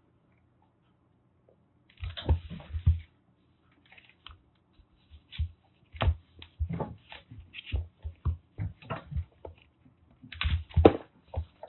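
Kittens at play: paws scrabbling and light thumps and knocks in irregular clusters, the loudest flurries about two seconds in and near the end.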